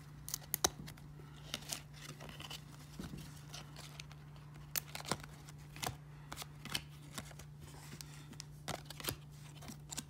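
1994 Topps baseball cards being flipped through by hand, the card stock giving soft, irregular snaps and slides as each card is moved to the back of the stack. A faint steady hum runs underneath.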